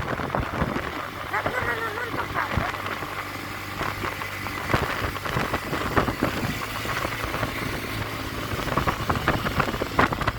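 Scooter engine running steadily while riding, under heavy wind buffeting on the microphone. A short wavering pitched sound comes about one and a half seconds in.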